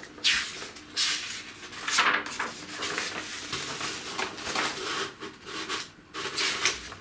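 A paper instruction booklet being handled and its pages turned, in a series of rustling swishes.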